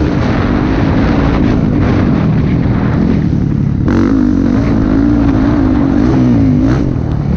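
Motocross bike's engine running hard at high revs, heard from the rider's helmet, its pitch dipping and climbing as the throttle is worked: it picks up again about four seconds in and drops back near the end. The rush of wind and a few knocks from the bike over the ruts are mixed in.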